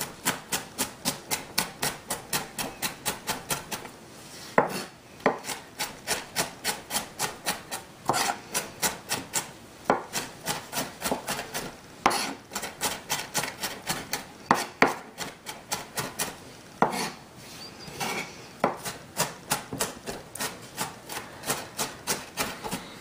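Chef's knife mincing onion on a cutting board: quick, even knife strokes on the board, about five a second, in runs broken by a few short pauses.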